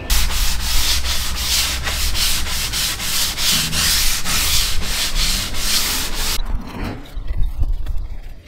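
Sandpaper rubbed by hand along a pine shelf board, in quick back-and-forth strokes at about three a second. It breaks off suddenly about six seconds in.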